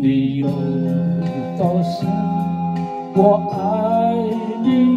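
Karaoke backing music playing through a karaoke soundbar, with a sustained pitched melody line that wavers in places.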